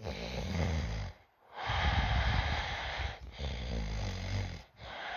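A person snoring: four long snoring breaths in a row, each a second or more, with short breaks between them.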